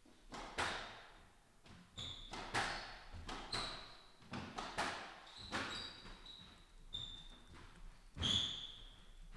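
Squash rally: the ball cracking off rackets and the court walls about once a second, echoing in the court, with shoes squeaking sharply on the wooden floor. The loudest hit and squeak come near the end.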